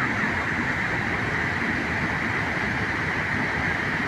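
Steady rush of water crashing down at a large dam: one continuous, unbroken roar with a strong hiss over a low rumble.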